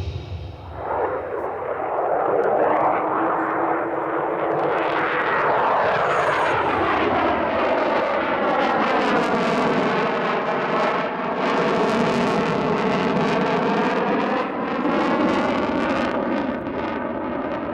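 F-16 Block 40 Fighting Falcon's single jet engine as the fighter flies past during a display. The loud jet noise builds about a second in and holds, with a sweeping, phasing tone that falls in pitch as the jet passes.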